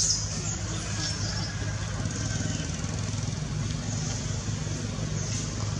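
Steady low hum of a running engine, with a faint high hiss that swells briefly a few times.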